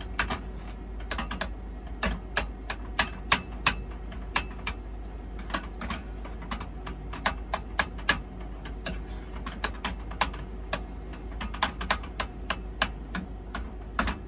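Potatoes being mashed by hand in a metal saucepan: the masher knocks against the pan in quick, irregular clacks, a few a second, over a steady low hum.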